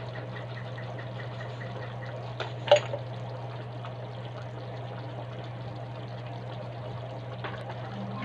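Pork pochero simmering in a frying pan: a steady bubbling of the tomato sauce over a low steady hum, with one sharp click a little under three seconds in.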